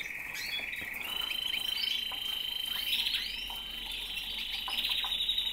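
Canaries singing: a long, rapidly pulsing rolling trill that steps up in pitch about a second in, with short chirps from other birds over it.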